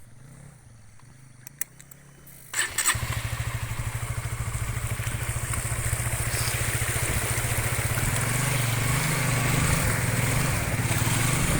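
A small motorcycle engine, faint at first, suddenly becomes loud about two and a half seconds in and keeps running with a rapid, even beat, its revs slowly climbing.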